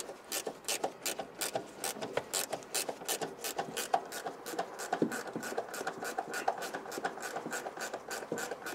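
Ratchet wrench clicking steadily, about four to five clicks a second, as the nut on a Vespa rear shock absorber's top mount is run down and tightened.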